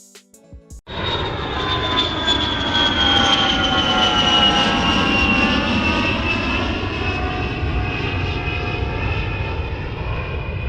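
Aircraft engine sound with several whining tones that slowly fall in pitch over a steady rush. It starts abruptly about a second in, after a few short clicks.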